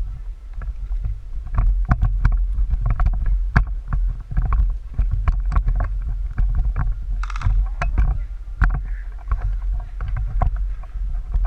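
Low rumble of wind and movement on a handheld or body-worn camera, with many irregular sharp clicks and knocks throughout.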